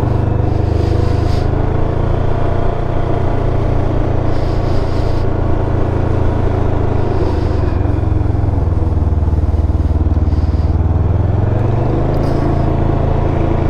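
Can-Am Ryker 600's two-cylinder engine running steadily under way. Its pitch sags a little around the middle and climbs again near the end. The exhaust leak has just been repaired, and the exhaust sounds like a regular Ryker.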